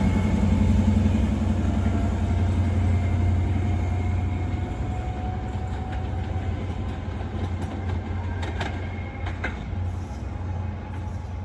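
A train's deep, steady rumble slowly fading as it moves away, with a faint tone sliding gently lower. A couple of sharp clicks of wheels over the rails come near the end.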